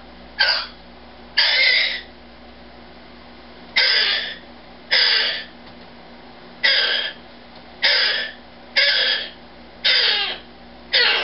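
Umbrella cockatoo screaming: about nine loud, harsh screeches of about half a second each, at uneven spacing. The owner puts the screaming down to offence at not being told good night.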